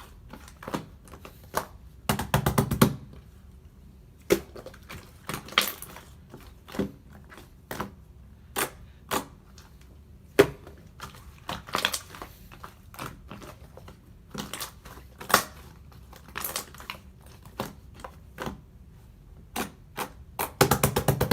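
Slime being squeezed and pressed by hand, making a string of sharp wet clicks and crackles, with quick runs of rapid clicking about two seconds in and again at the end.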